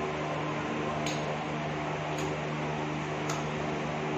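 Steady electrical or machine hum with a constant hiss, and three soft ticks about a second apart.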